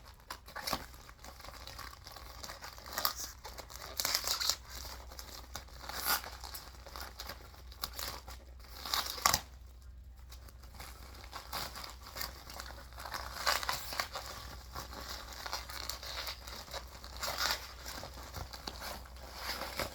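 Shipping packaging being torn open and crumpled by hand: irregular crinkling and tearing, in bursts.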